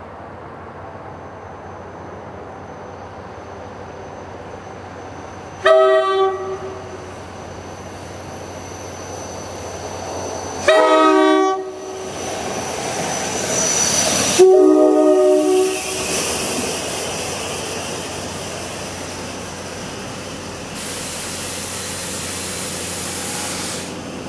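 Multi-chime horn of an NJ Transit push-pull commuter train, sounded from its leading cab car: three blasts, a short one and then two longer ones. After the second blast the steady rumble and hiss of the train rolling past grows and carries on.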